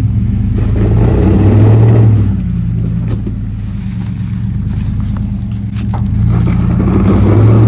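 Off-road vehicle's engine running under load on a rocky obstacle, revving up twice, about a second in and again near the end, and settling lower in between.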